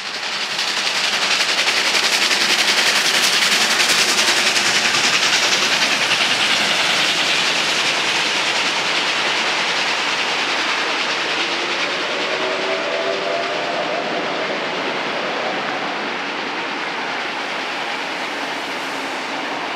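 R class Hudson steam locomotives with a passenger train passing: a loud rush of exhaust and running gear swells in the first second or two and is loudest for the next few seconds, then eases slowly as the carriages roll by. A faint pitched tone sounds for a few seconds past the middle.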